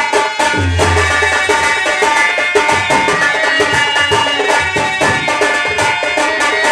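Music with a steady drum beat under sustained pitched instruments.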